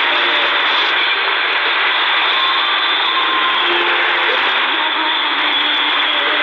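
Shortwave reception on a C.Crane CC Skywave portable radio tuned to 5800 kHz: a steady, loud static hiss with faint snatches of the pirate station's music showing through it.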